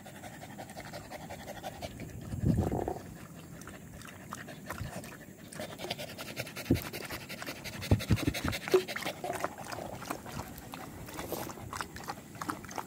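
An Indonesian village dog panting, with many quick ticks through the second half and one louder noise about two and a half seconds in.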